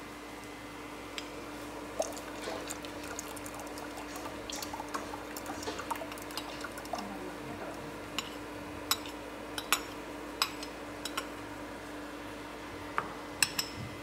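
A steel spoon stirring a semolina and milk mixture in a bowl, then the thick mixture poured into a steel saucepan of hot milk while the spoon scrapes and clinks against the bowl several times in the second half. A steady low hum runs underneath.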